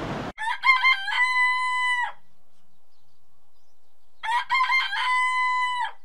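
A rooster crowing twice on near silence, each crow a few quick broken notes ending in one long held note, the two about two seconds apart.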